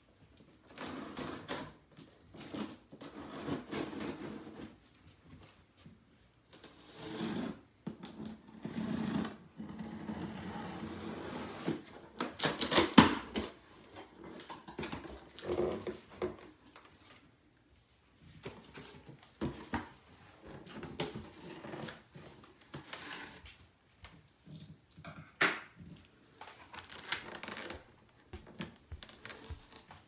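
Irregular clicks, knocks and rustling of things being handled in a small enclosed space, with a louder cluster of knocks about halfway through.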